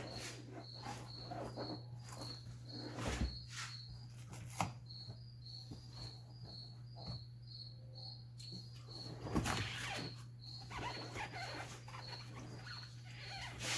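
A cricket chirping steadily, short high pulses about three a second, over a steady low hum. Scattered knocks, and a louder rustling scrape about nine seconds in.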